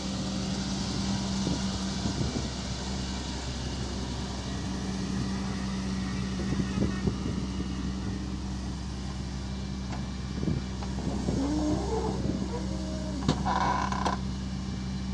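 Doosan DX140 excavator's diesel engine running steadily under work, with scattered knocks and clanks, a wavering pitch about three quarters of the way in, and a short higher sound near the end.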